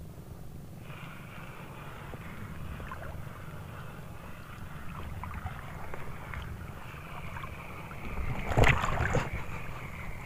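Steady low wind rumble on the microphone and shallow water lapping, with a brief loud clatter about eight and a half seconds in.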